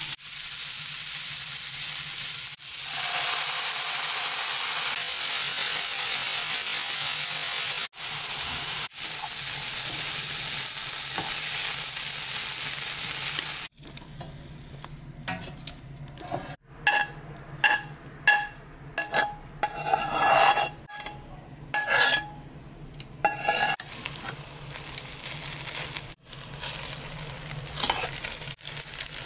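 Chicken, egg and broccoli frying in a hot pan, a loud steady sizzle that cuts off abruptly about halfway through. After that a quieter sizzle goes on, broken by irregular bursts of stirring: a utensil scraping and clinking against the metal pan.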